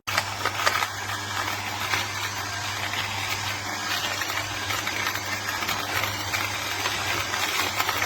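Weinsamkeit portable electric coffee grinder, ceramic conical burr, running: its small motor starts abruptly and keeps a steady hum.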